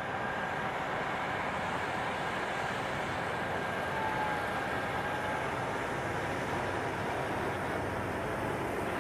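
Steady mechanical drone of a John Deere X9 combine harvester at work, with a faint high whine running through it and a second fainter tone that wavers slightly from about halfway through.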